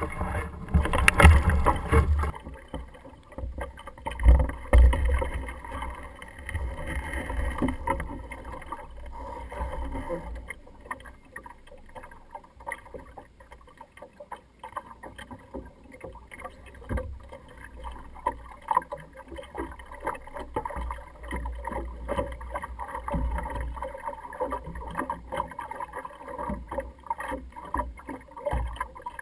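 Water slapping and splashing against the hull of a small Optimist sailing dinghy under way, with wind buffeting the microphone in low, uneven thumps. Loudest and harshest in the first two seconds, then quieter.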